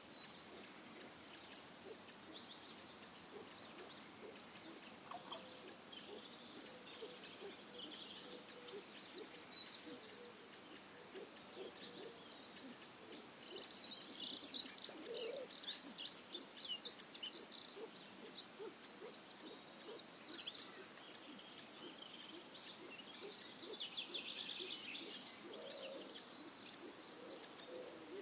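Dawn chorus of small birds singing: many short, high chirps and trills overlapping. It is busiest and loudest about halfway through.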